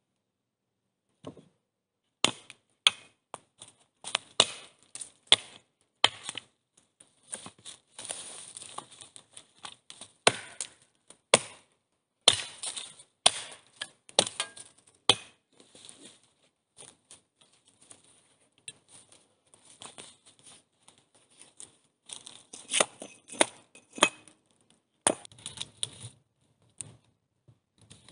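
Axe chopping wood: a string of sharp, irregular strikes, with scraping and rustling between them.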